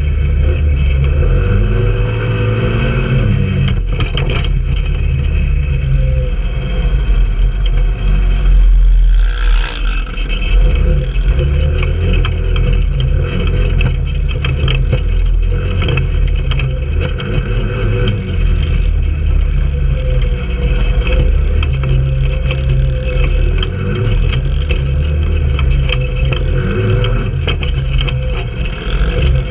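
Trailmaster 150 go-kart's small engine running under way on dirt, heard close from a camera on the kart, its engine speed rising and falling. A loud rush of noise comes about nine seconds in.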